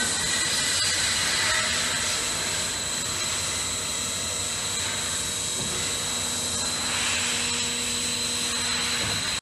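Macc S-391 A automatic band saw for metal running, a steady mechanical drone with a constant high whine over it.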